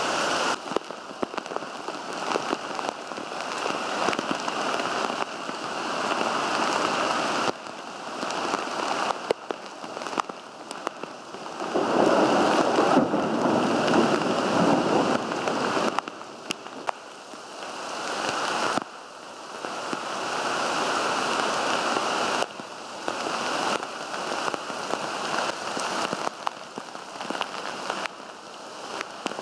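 Heavy rain pouring down: a dense, steady hiss with scattered sharp drop taps. The loudness jumps up and down abruptly several times and is loudest for a few seconds near the middle.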